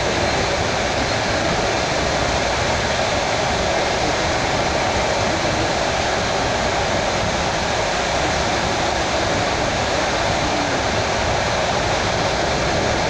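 Suburban electric train running at speed, heard from inside the carriage: a steady, unbroken running noise.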